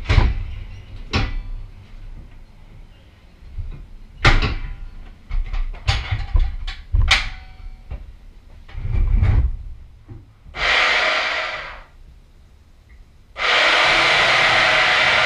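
Metal knocks and clatters as a steel helmet rack is set and clamped in a jaw horse. Then a portable bandsaw starts briefly and spins down, and near the end starts again and runs steadily.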